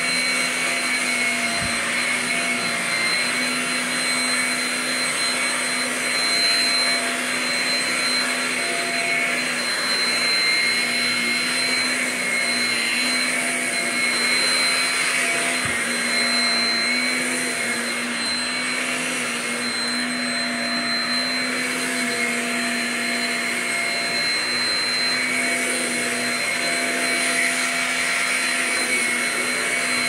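Shark Rocket stick vacuum with self-cleaning brushroll running steadily, pushed over carpet: a constant motor whine with a high steady tone over a rush of airflow. A couple of faint low knocks are heard, one about two seconds in and one about halfway.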